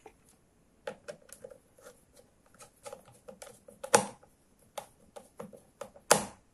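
Plastic battery cover and case parts being handled and fitted back onto a handheld digital multimeter: a run of light plastic clicks and taps, with two louder snaps about four and six seconds in.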